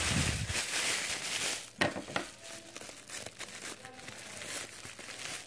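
Thin plastic shopping bag crinkling as it is handled and wadded, loudest in the first two seconds or so. A sharp tap comes about two seconds in, then fainter rustling.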